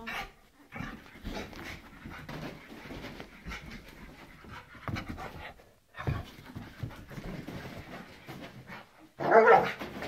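Pit bull terrier panting hard while it races about in a post-bath frenzy. A short, louder burst near the end.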